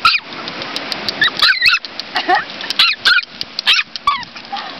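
A dog barking in short, high-pitched yips, about half a dozen between roughly one and four seconds in, over sharp clicking of stones knocked together.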